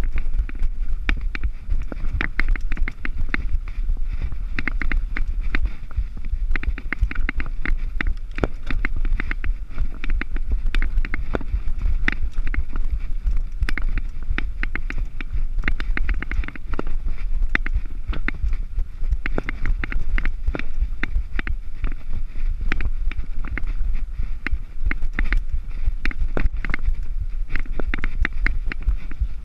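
Mountain bike descending a rough dirt trail at speed: wind buffets the chest-mounted camera's microphone with a constant low rumble, over a dense, continuous clatter of the bike rattling over rocks and roots.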